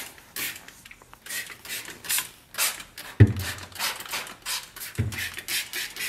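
Trigger spray bottle squirting a warm water and vinegar solution onto a refrigerator's plastic inner wall, in short hissing squirts about one or two a second. Two dull knocks come about three and five seconds in.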